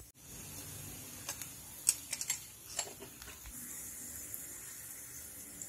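Cumin seeds sizzling in hot oil in a kadai on a low flame: a steady hiss with scattered small pops and crackles.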